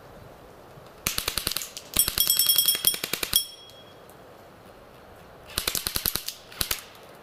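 Airsoft rifle firing rapid full-auto bursts of clicking shots: two bursts close together about a second in, the second lasting about a second and a half, then two shorter bursts from about five and a half seconds in.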